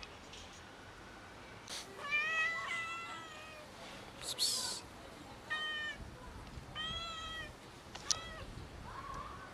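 Several stray cats meowing repeatedly to beg for food, about five separate meows, with a short noisy burst near the middle.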